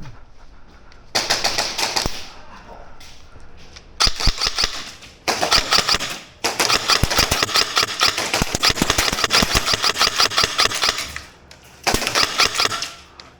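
Airsoft guns firing on full auto in about five rapid bursts, the longest running for several seconds midway.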